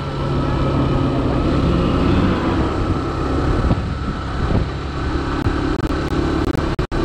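Motorcycle engine running steadily at road speed, mixed with wind and road noise as heard from the rider's seat. The sound cuts out twice, very briefly, near the end.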